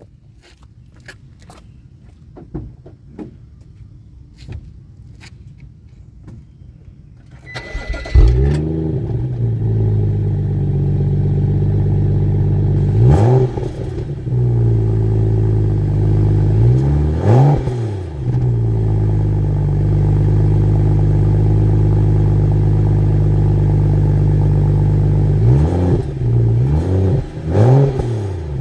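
BMW M235i xDrive with its stock exhaust starting up about eight seconds in, after a few light clicks, with a loud flare that settles into a steady idle. The engine is then revved twice and blipped several times in quick succession near the end.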